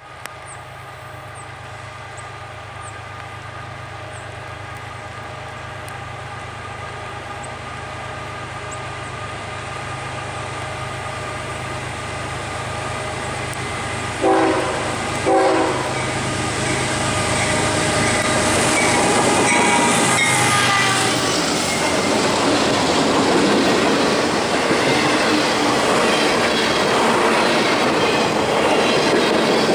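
Diesel-hauled freight train, led by a GE ES40DC and an EMD SD40-3, approaching at speed, the locomotives' engine rumble growing steadily louder; about halfway the horn gives two short blasts. The locomotives then pass and the loaded flatcars roll by with a continuous clatter of wheels on rail.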